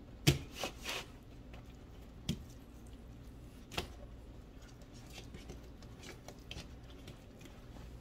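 Paper towel pressed and patted on rinsed raw steaks on a plastic cutting board to dry them: soft damp squishing and paper rustling, with a few short sharp taps, the loudest about a third of a second in.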